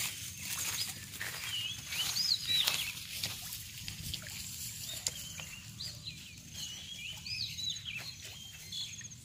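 Birds calling in short, looping chirps, over a light patter of small splashes on a pond's surface.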